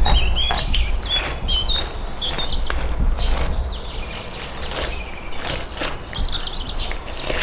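Small birds chirping and twittering in short high calls, with repeated sharp clicks and knocks and a steady low rumble underneath.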